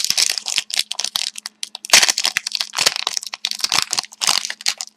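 Plastic wrapper of a hockey card pack crinkling and crackling as it is torn open, in a quick, irregular run of crackles.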